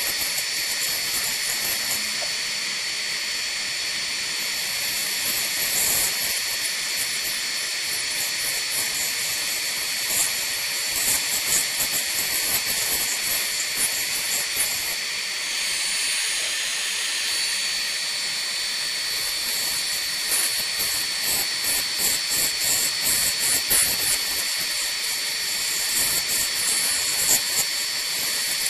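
Orbitool cross-hole deburring tool worked by hand, its cutter scraping the burr at the edge of a drilled cross-hole in metal: runs of rapid fine scraping ticks that come and go, over a steady high hiss with a thin whine.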